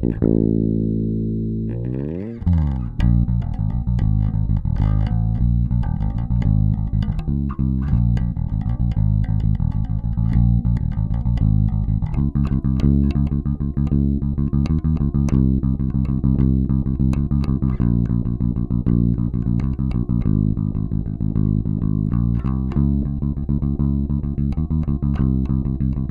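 Solo five-string electric bass. A note slides down in pitch and dies away, and after a short gap a Warwick Pro Series Corvette Standard bubinga bass comes in about two seconds in with a slide and then plays a continuous fingerstyle bass line. A faint steady high whine sits underneath.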